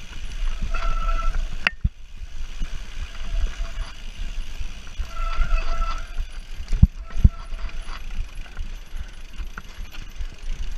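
Mountain bike rattling down a rocky dirt singletrack, with a constant low rumble from tyres and wind on the handlebar-mounted camera's microphone and a few sharp knocks from the bike hitting rocks. Twice the brakes give a short squeal.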